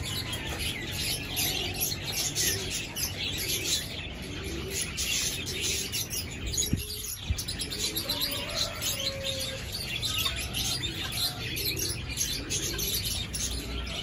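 Birds chirping and twittering over one another, with a few lower gliding calls mixed in, and a couple of soft taps around the middle.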